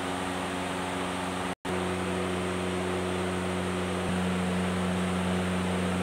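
Khind glass-door display refrigerator running: a steady electrical hum from its compressor and fans over an even rush of fan noise. The sound drops out completely for a split second about a second and a half in.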